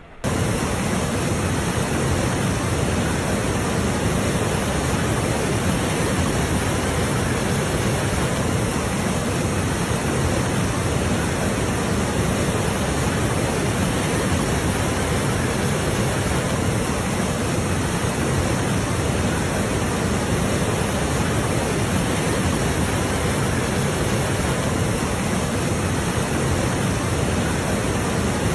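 Steady, unchanging roar of rushing floodwater.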